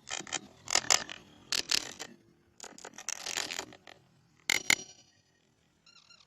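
Irregular runs of mechanical clicking and rattling, with two sharp clicks in quick succession about four and a half seconds in, then a faint short pitched call near the end.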